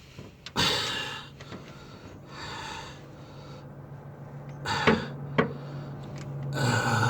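A man breathing hard and exhaling with effort while pulling on a torque wrench to tighten a cylinder head bolt, with two sharp clicks half a second apart about five seconds in.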